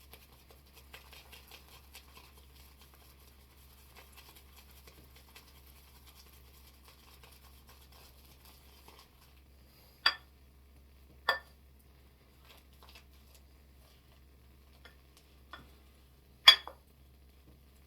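Shaving brush whipping soap lather in a bowl: a faint, quick, wet patter of bristles and bubbles. Three sharp knocks come about ten seconds in, a second later, and near the end, the last the loudest.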